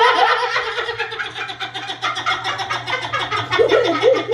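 People laughing hard: a fast, high-pitched cackling laugh that runs on without a break.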